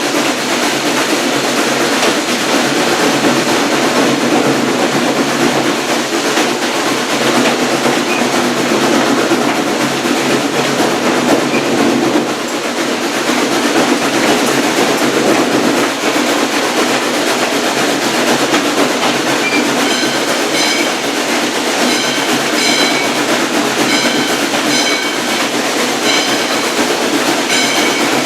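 A steam-hauled passenger train running on the rails, heard from aboard a coach: a steady rumble and rail noise. About two-thirds of the way in, a ringing, bell-like tone starts striking a little more than once a second.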